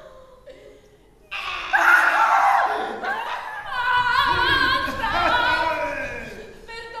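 A high voice singing loudly on stage with a wavering vibrato, coming in suddenly about a second in after a near-quiet moment.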